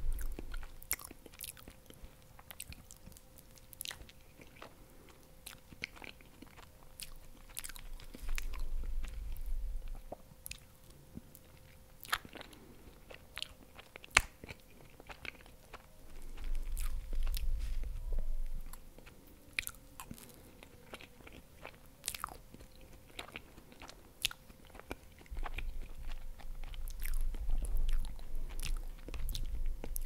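Close-miked mouth sounds of eating soft desserts: wet chewing with many sharp, scattered clicks and smacks, and three stretches of low rumble. A faint steady hum lies underneath.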